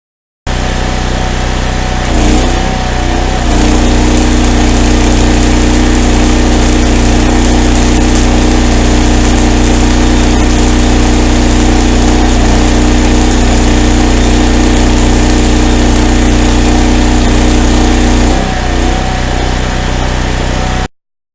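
Miller Blue Star 185 engine-drive welder running. Its engine takes on weld load from a 5/32 E6011 rod about three seconds in and holds a steady loaded note for about fifteen seconds. Near the end it eases back to its unloaded note as the arc is broken.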